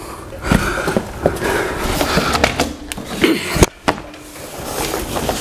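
A Harbor Freight tilting TV wall mount and TV being worked by hand to tilt the screen: scraping and rattling with several sharp knocks, the loudest about three and a half seconds in.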